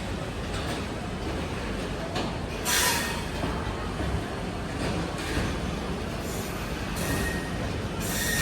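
A train running slowly through a station with a steady low rumble of wheels on track. Bursts of high metallic wheel screeching come about three seconds in and again near the end.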